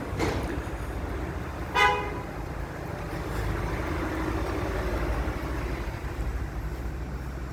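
Range Rover Sport running with a steady low drone, and one short horn-like beep just under two seconds in.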